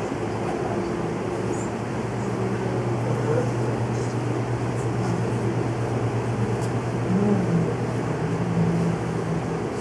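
Steady low hum under a constant hiss, with faint voices murmuring in the background.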